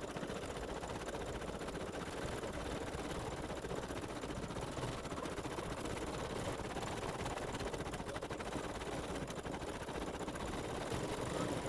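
Embroidery machine stitching steadily, a fast even run of needle strokes.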